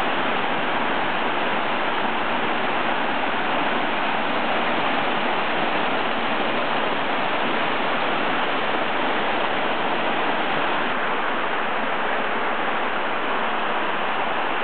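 Waterfall cascading down rock faces into a pool, a steady rush of water.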